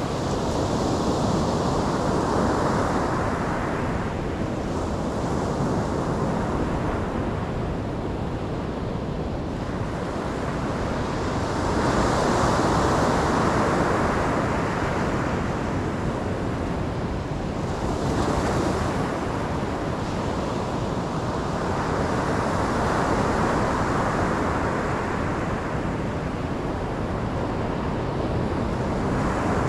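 Ocean surf: waves breaking and washing in continuously, swelling about every five or six seconds.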